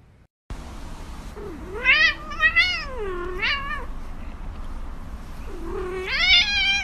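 Cat meowing in two long, drawn-out calls with a wavering pitch. The first starts about a second and a half in and lasts about two seconds; the second comes near the end.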